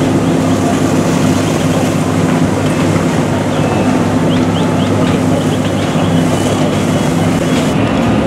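Fire apparatus diesel engine running steadily at raised speed to drive the pump feeding the hose streams: a constant low hum under a hiss.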